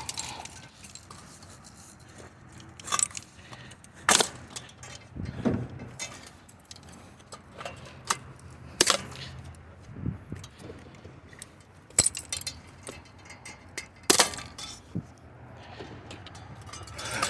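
Scrap metal being broken off and handled: about ten irregular sharp metallic clinks, knocks and snaps, spread out with short quiet gaps.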